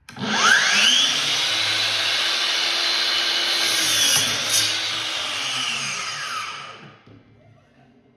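DeWalt 60V FlexVolt brushless 12-inch sliding miter saw switched on: the motor and blade spin up with a rising whine, run steadily for about six seconds, then spin down with a falling whine near the end.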